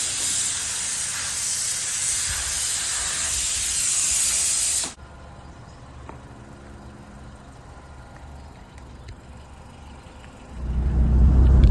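A loud, steady hiss that cuts off suddenly about five seconds in, followed by a faint low hum; near the end a loud low rumble starts.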